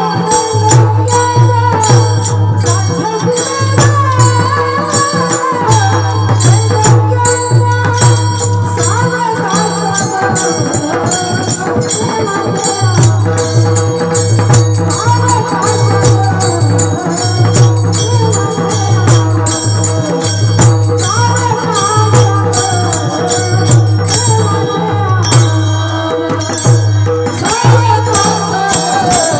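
Mridang (pakhawaj, a two-headed barrel drum) played in a fast, dense rhythm of strokes, its deep bass head pulsing under crisp treble strokes, with a wavering melodic line above it.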